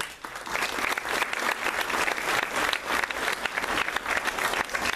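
A large audience applauding: dense, even clapping that breaks out all at once.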